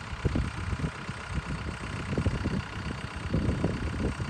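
Backhoe engine idling steadily, with irregular low knocks and rumble.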